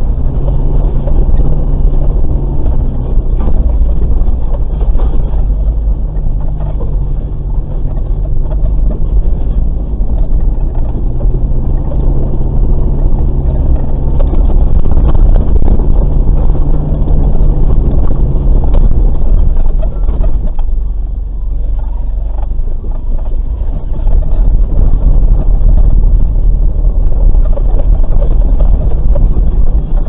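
Off-road vehicle's engine running at low revs as it crawls over a rough forest dirt track, heard through a dashcam inside the cab: a heavy low rumble with jolts and knocks from the bumpy ground. The engine note eases about two-thirds of the way through, then picks up again.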